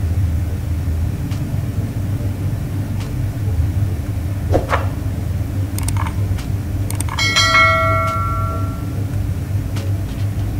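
A steel engine part is struck once about seven seconds in and rings like a bell, dying away over about a second and a half. Light metallic clicks of parts being handled are heard over a steady low background hum.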